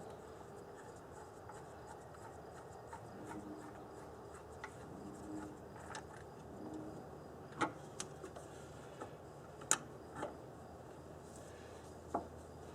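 Faint, scattered light metallic clicks and rubbing as the Corvair's oil filter retaining bolt is worked loose and the old filter freed by hand, with a few sharper clicks in the second half.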